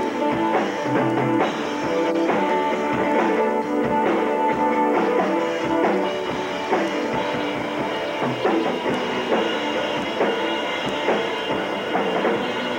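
Live rock band playing, with several strummed acoustic guitars over a steady drum kit beat; the recording is thin, with little bass.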